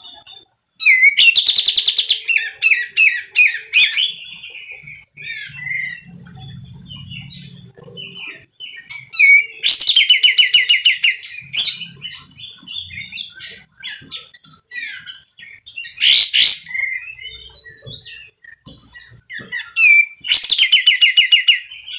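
Caged kapas tembak bulbul calling loudly and harshly in four bursts of rapid repeated notes, several seconds apart, with softer chattering between.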